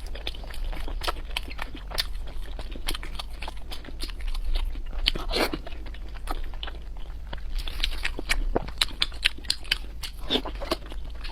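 Close-miked eating of crunchy food: a person biting and chewing, with many sharp crunches.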